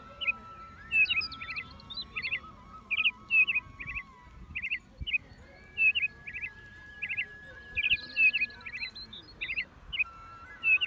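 Small birds chirping in quick pairs and threes, over and over, over faint background music with a slow held melody.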